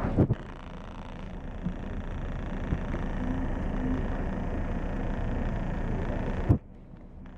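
Inside a moving tour coach: steady low rumble of the engine and road noise. There are a couple of knocks at the start and a sharp knock about six and a half seconds in, after which the rumble is much quieter.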